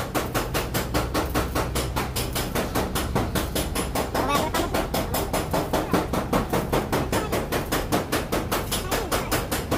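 Rapid, even tapping from tool work on a metal rod at a car's front, about seven strikes a second, over a low steady hum.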